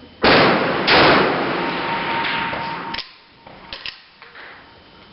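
Two loud rifle shots about two-thirds of a second apart, each ringing out in a long echoing tail that fades over about two seconds. A few sharp clicks follow about a second later.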